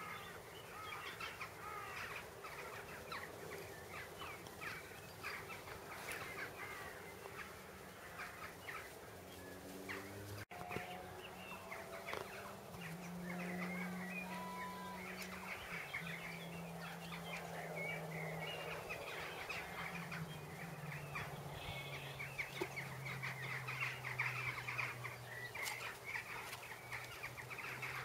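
Outdoor birdsong: many birds chirping and calling over and over. From about twelve seconds in, a low steady drone joins them and sinks slowly in pitch.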